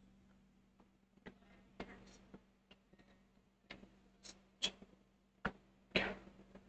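Faint, irregular taps and ticks of a stylus on a tablet screen as he points and writes, about ten spread through the stretch, over a faint steady hum.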